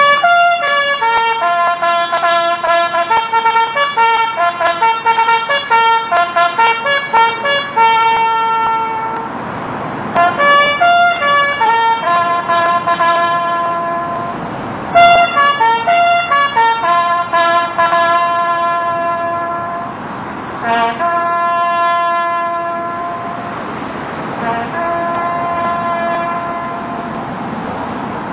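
Military bugle call: a quick run of short notes for the first ten seconds or so, then slower, longer held notes with brief pauses.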